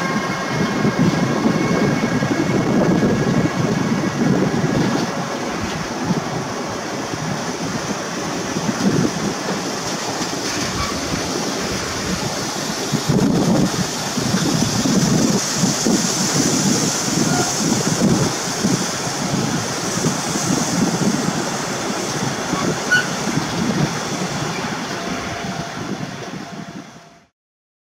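Freight train of loaded tank wagons rolling past, with a steady rumble of steel wheels on rail and irregular clatter and knocks from the wagons. A hiss in the upper range swells through the middle, and the sound cuts off abruptly near the end.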